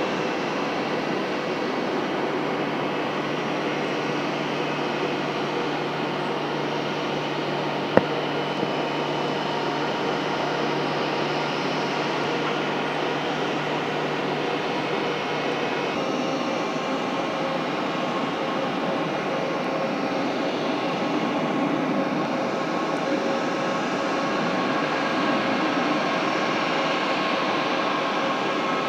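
Jet airliner engines running steadily, a continuous noise with a whine of several steady tones through it, with one sharp click about eight seconds in.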